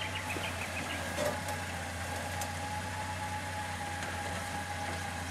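Toyota LandCruiser 80 series engine running steadily at low revs, an even idle-like hum.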